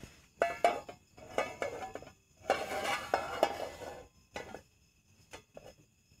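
A metal frying pan on a portable gas camp stove clinking and scraping as it is handled and its contents stirred. The scraping is densest from about two and a half to four seconds in, with a few lighter clicks after.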